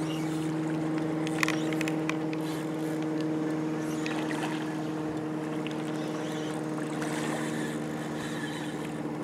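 A boat motor running steadily at one unchanging pitch. A few short, sharp sounds come about one and a half seconds in.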